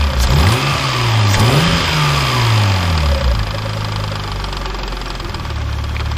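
Mazda K8 1.8-litre V6 engine blipped with the throttle, its pitch rising and falling back, then settling to a steady idle about halfway through. The blips test its throttle response while the idle is being set.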